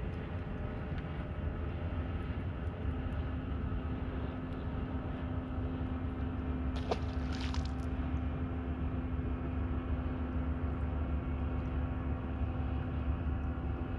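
Bass boat's bow-mounted electric trolling motor humming steadily over a low rumble, with a brief sharp noise about seven seconds in.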